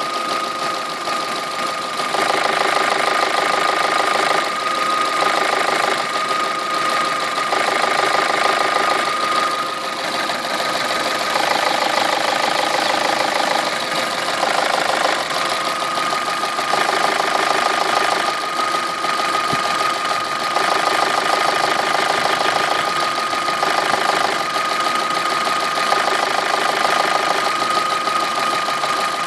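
Opel Z18XER 1.8-litre four-cylinder petrol engine idling with a knock from a gear, the fault being recorded. A steady high whine runs throughout, and a mid-pitched layer comes and goes every second or two.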